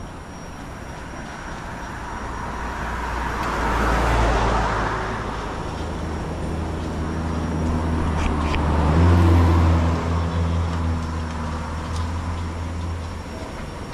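Road traffic passing close by: one vehicle rushes past about four seconds in, then a heavier vehicle with a low engine note passes near nine seconds and fades away.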